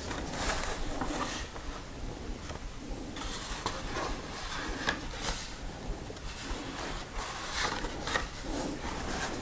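Stiff card pages of an old photo album being handled and turned, with soft rustling and scraping of cardboard on paper, a few louder rustles about five seconds in and again near the end.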